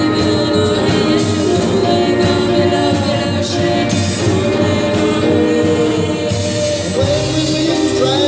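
Live band performing a song: singing over electric guitar and keyboards.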